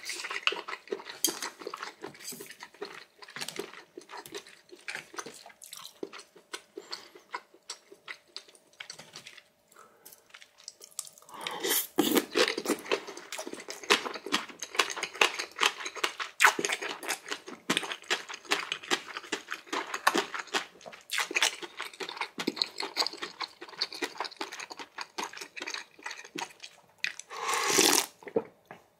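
Close-miked mukbang eating sounds from a spicy noodle meal: wet chewing, slurping and smacking with irregular clicks of utensils and dishes. Louder from about twelve seconds in, with a longer, louder stretch near the end.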